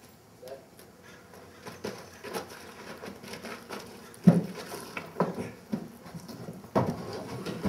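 A saddled horse shifting its hooves on packed dirt: irregular thumps and knocks, the loudest about four seconds in.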